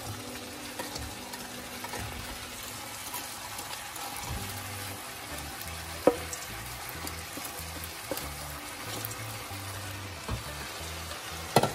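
Sauce and vegetables sizzling steadily in a wok as fried chicken strips are tipped in and pushed off the paper with a wooden spatula, with a few knocks against the pan, the loudest a little after six seconds and just before the end.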